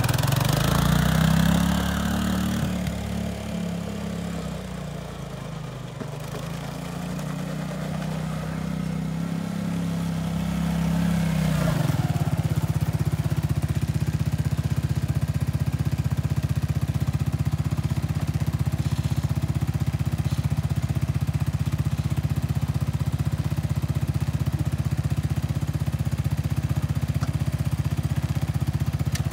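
Arctic Cat ATV engine revving up and falling back twice as the quad is driven, then dropping to a steady idle about twelve seconds in.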